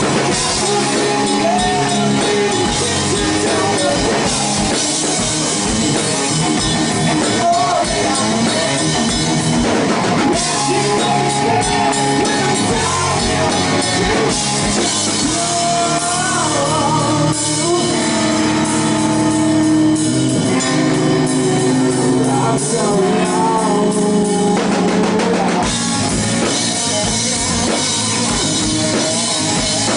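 Live rock band playing: electric guitar over a drum kit, with singing at times.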